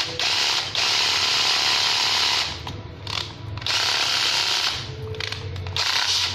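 National EZT105 12V cordless drill/driver running on its slow speed with the chuck held in the hand, so the clutch slips and ratchets. It runs in several bursts with short breaks between them.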